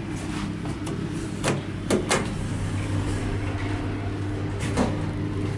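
Elevator car's glass doors sliding shut, with a few sharp clicks about two seconds in and another knock near the end, over a steady low hum.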